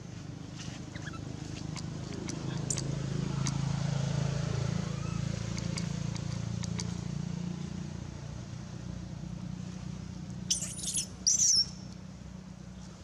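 A motor vehicle's engine hums low in the background, swelling and then fading over the first eight seconds. Near the end come two short, loud, high-pitched squeals from a baby long-tailed macaque.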